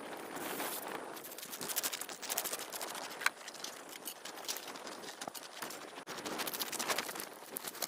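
Irregular crunching and rustling of someone working on snow-covered ice while setting up a hub-style ice-fishing shelter, with one sharp click about three seconds in.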